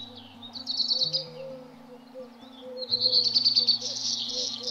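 Small songbirds chirping in quick, trilling bursts: a short burst about a second in and a longer, louder run from about three seconds. Soft sustained low notes sit beneath them.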